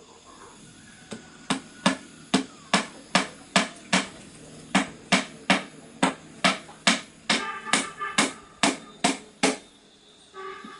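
A steady run of about twenty sharp knocks, a little over two a second, with one short break about four seconds in: someone striking repeatedly with a tool.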